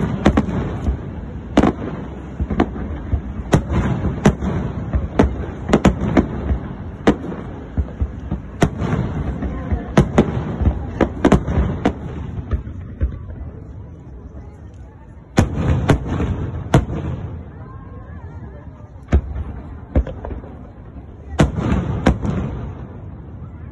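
Aerial fireworks display: shells bursting in many sharp bangs at an irregular pace, often two or more a second, over a continuous rumble of further bursts. The bangs thin out briefly in the middle, then come again in fresh volleys.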